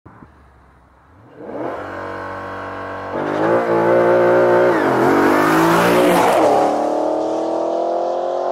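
Porsche Panamera GTS's 4.8-litre V8 exhaust at full acceleration as the car flies by. The engine is faint at first and grows loud from about a second and a half in, jumping up again near three seconds. The pitch swings as the car sweeps past around the middle, then climbs steadily as it pulls away, still accelerating.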